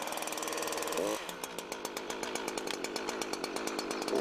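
Husqvarna two-stroke petrol chainsaw idling after a start, with the chain brake on. The engine revs up briefly about a second in and again near the end.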